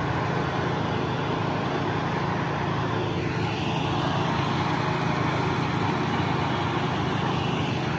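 A steady engine drone with a dense hiss over it, running evenly without change.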